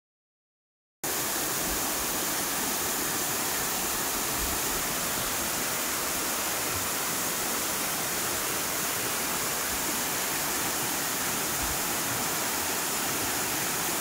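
Waterfall cascading down a rock face: a steady, even rush of falling water that cuts in abruptly about a second in.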